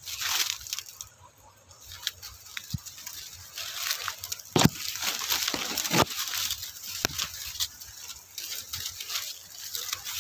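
Dry, dead maize leaves and stalks rustling and crackling as someone pushes through them on foot, with a few sharper crackles about halfway through.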